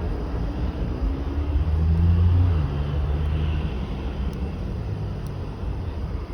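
Twin turbofan engines of an Embraer E175 regional jet on takeoff, a low rumble that swells to its loudest about two seconds in and then slowly fades.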